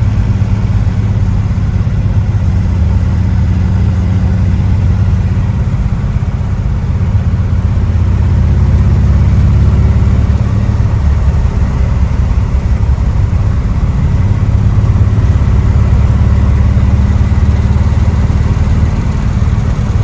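Old car being driven, its engine running with a low, steady note. Near the middle the engine note wavers and shifts before settling back to a steady run.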